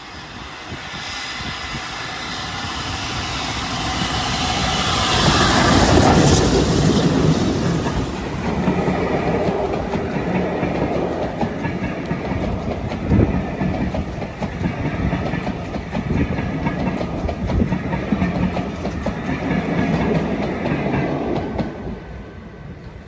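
The Flying Scotsman, an LNER A3 steam locomotive, passes with its train: the sound builds as it approaches, is loudest about six seconds in as the engine goes by, and then the coaches roll past on the rails until it fades near the end.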